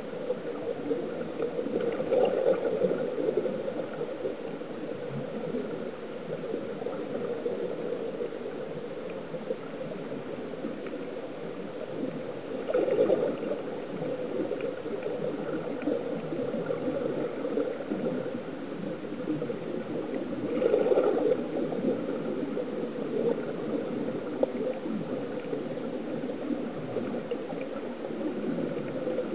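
Underwater ambience picked up by a submerged camera: a steady gurgling hiss of air bubbles, swelling into three louder bubbling surges about two, thirteen and twenty-one seconds in.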